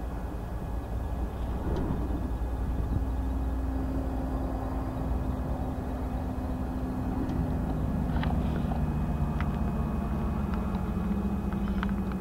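Car engine running with a low rumble, heard from inside the cabin; its steady hum drops in pitch about seven seconds in. A few light clicks come in the second half.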